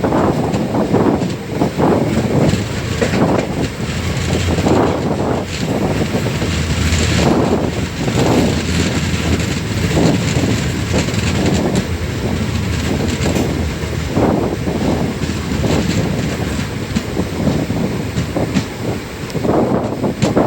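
Passenger train coach running along the track, its wheels clattering over the rails and the carriage rattling.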